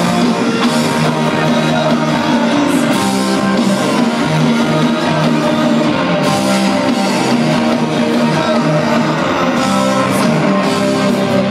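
A live rock band playing, with electric guitars and a drum kit, loud and continuous, heard from among the audience in a concert hall.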